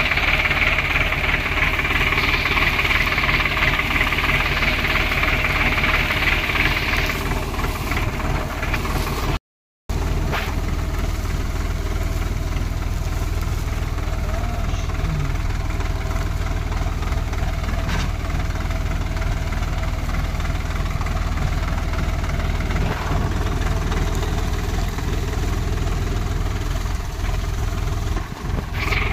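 Swaraj 744 XT tractor's three-cylinder diesel engine running steadily under load as it drags a weighted implement through tall grass. The sound cuts out for a moment about ten seconds in.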